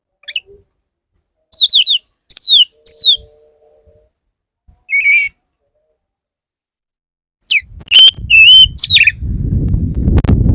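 Male Oriental magpie-robin singing: three loud falling whistled notes, a single note a couple of seconds later, then a quick run of whistles near the end. A loud low rushing noise comes in over the last second or so.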